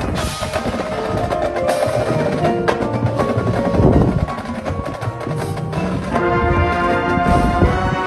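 Marching band playing a percussion-led passage: drum hits and mallet-percussion notes over a thinner band texture. About six seconds in, the band comes in with full held chords.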